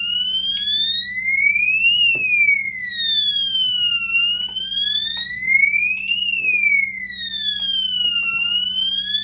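Fire alarm sounder set off from a manual pull station, wailing loudly: one siren tone that rises for about two seconds and falls for about two, over and over.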